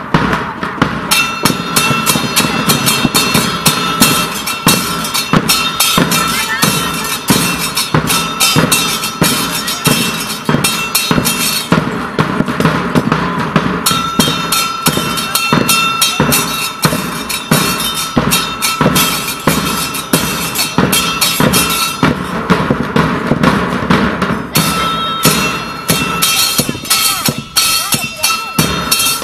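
Argentine murga percussion: bass drums (bombos con platillo) beating a fast, driving rhythm, with cymbal strikes ringing over it. The ringing on top drops out twice for a couple of seconds while the drumming carries on.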